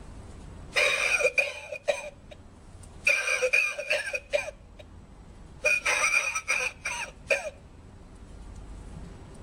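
Novelty lung-shaped ashtray playing recorded coughing through its built-in speaker, three bouts of about one and a half to two seconds each.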